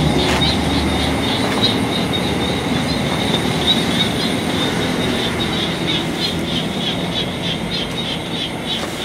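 Night insects chirping in a steady rhythm, about three to four chirps a second, over a low rumbling background.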